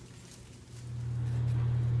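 Faint background noise, then about two-thirds of a second in a steady low mechanical hum fades in and holds at one pitch.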